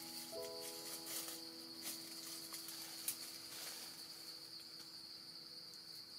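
Steady high-pitched drone of insects in tropical forest, with a few faint rustles and clicks in the leaf litter. Soft held music notes sound underneath.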